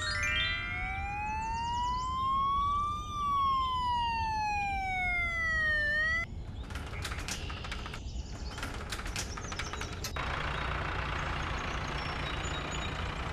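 Cartoon ambulance siren: a slow wail rising and falling, about three seconds each way, that cuts off about six seconds in. A brief run of chiming tones is heard near the start. After the siren come clusters of rattling clicks and then a steady hiss over a low engine-like rumble.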